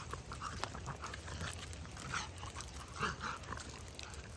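A dog panting in short, uneven breaths while mouthing and carrying a stick.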